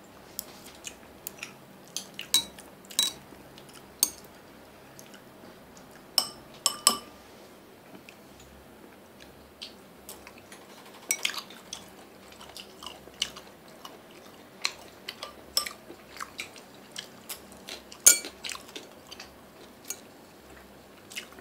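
Chopsticks clicking and tapping against ceramic plates and bowls at irregular intervals, with chewing of chopped meat in between. The loudest clack comes near the end.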